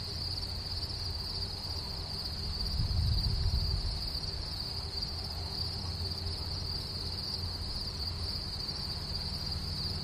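A chorus of crickets chirping steadily, a continuous high-pitched trill with no breaks. Beneath it runs a low rumble that swells briefly about three seconds in.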